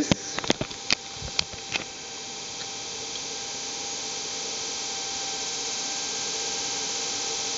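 NetGain WarP9 DC electric motor running unloaded at its set idle of about 1000 RPM, a steady hum and hiss that grows slowly louder. A few sharp clicks in the first two seconds.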